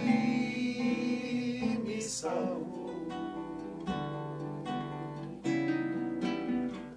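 Acoustic guitar playing a slow accompaniment between sung lines of a worship song, with a singer's voice holding a note over the first couple of seconds.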